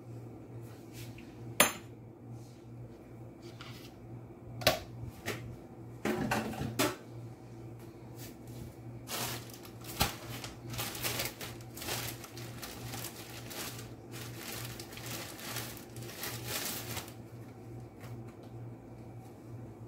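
Kitchen clatter of dishes, pots and utensils: a few sharp clinks in the first half, then a longer stretch of crackling, rustling noise, over a low steady hum.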